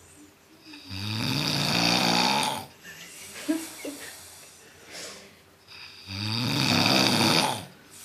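A sleeping man snoring: two long snores about five seconds apart, each a low buzz with breathy hiss lasting under two seconds, and a softer breath between them.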